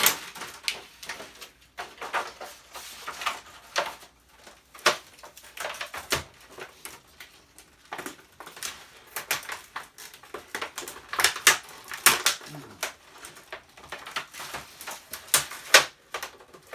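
Brittle, heat-aged plastic pieces cracking and snapping as they are broken off the metal panel of a 2006 Samsung flatscreen TV being scrapped. The result is an irregular run of sharp clicks and cracks, several close together, with a few louder snaps near the middle and near the end.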